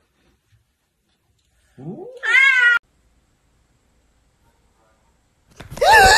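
A cat gives one meow that rises steeply in pitch about two seconds in. Near the end a loud cry with a wavering pitch begins.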